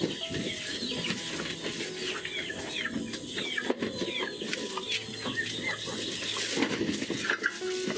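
Chickens clucking, with many short falling peeps and scattered clicks and knocks.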